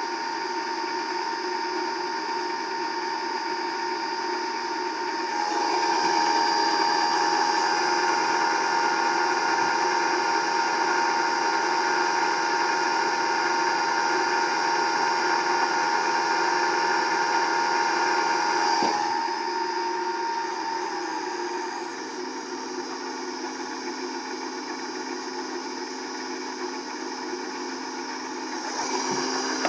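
A Baldor 7.5 hp three-phase electric motor running unloaded on a Mitsubishi S500 variable frequency drive rated at only about half a horsepower: a steady electric whine with several held tones. It gets louder about five seconds in, drops and falls slightly in pitch around twenty seconds in as the speed is turned down, and picks up again near the end.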